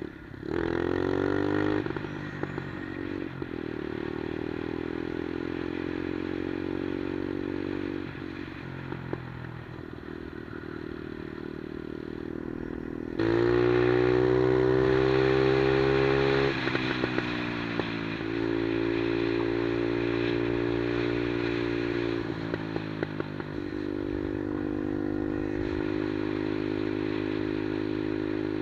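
Monkey-style minibike's 110cc single-cylinder four-stroke engine being ridden, its pitch climbing under throttle and dropping back several times as the rider opens and closes the throttle. It is loudest and highest for a few seconds about halfway through.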